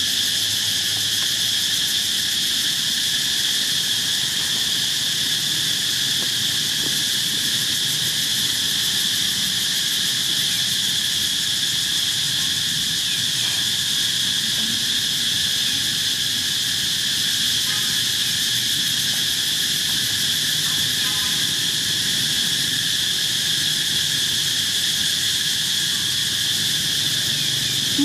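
A steady chorus of insects: a continuous high-pitched drone that holds its level without a break.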